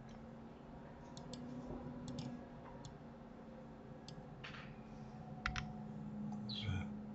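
Scattered clicks of a computer mouse and keyboard keys, about ten in all, including a quick pair about five and a half seconds in, over a faint steady low hum.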